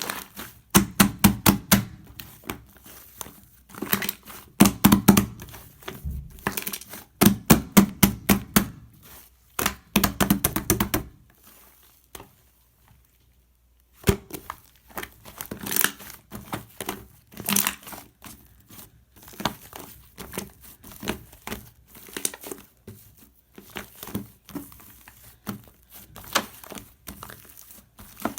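Pink slime topped with shaving foam being squished and kneaded by hand. It gives rapid runs of wet clicks and pops, stops for about three seconds a little before the middle, then goes on with sparser clicks.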